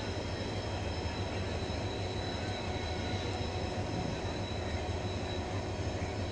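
Diesel-electric locomotive engine running, a steady low rumble.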